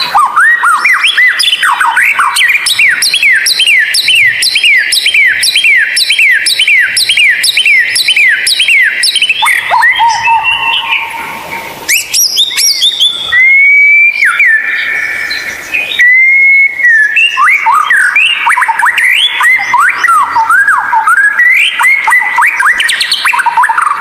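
White-rumped shama singing: a fast run of repeated sweeping notes, about three a second, that slowly climbs in pitch for about ten seconds, followed by a few long held whistles and then quick varied phrases.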